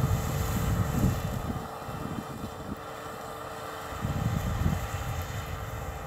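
John Deere round-module cotton picker running in the field: a steady machine drone with a constant hum. Wind buffets the microphone in gusts, strongest at the start and again about four seconds in.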